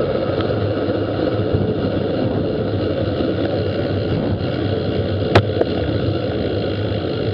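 Steady rumbling noise picked up by a bicycle-mounted camera as the road bike coasts slowly to a stop, with one sharp click about five seconds in.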